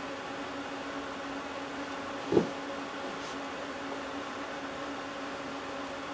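Steady hum of workshop room tone, broken by one sharp knock about two and a half seconds in.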